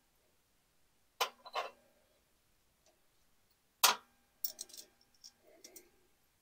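Small metal fasteners (nuts and bolts) clicking and clinking as they are picked through by hand, a few sharp separate clicks and then a quick run of lighter ticks; the loudest click comes a little before the middle.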